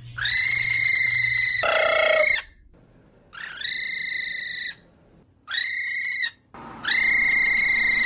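A cockatiel calling: five long, loud, flat whistled calls with short gaps between, each sliding briefly up into a steady high note. The second call is shorter and drops lower.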